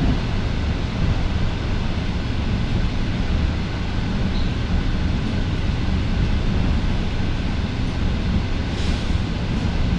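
Inside a moving suburban electric commuter train: the steady low rumble of the carriage running along the track.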